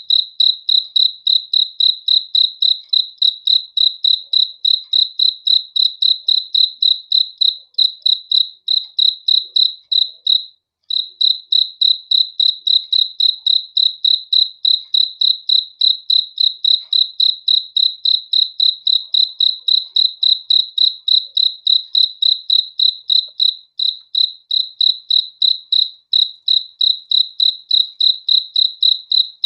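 A cricket chirping: one high-pitched chirp repeated evenly, about three to four times a second, with a brief pause about ten seconds in.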